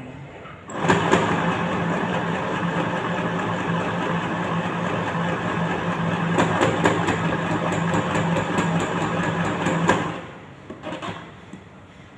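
Electric sewing machine stitching a seam: a steady motor hum with a fast, even needle clatter, starting just under a second in and stopping suddenly near ten seconds. A few faint knocks follow.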